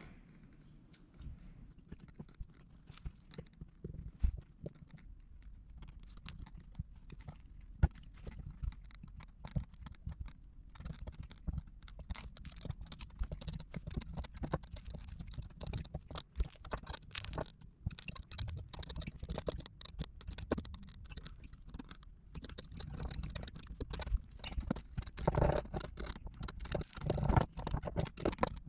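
Irregular scraping, scratching and small taps as a plastic welding iron is worked over a polypropylene gas tank, adding and smoothing plastic. There are a few sharp clicks early, and the sound is busier near the end.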